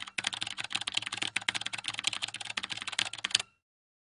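Computer keyboard typing sound effect: a fast, uneven run of keystroke clicks that stops suddenly about three and a half seconds in.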